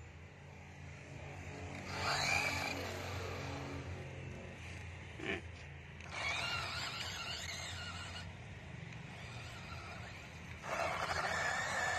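Toy RC off-road truck's small electric motor and gears whining as it drives, in three spurts of a second or two with a wavering pitch.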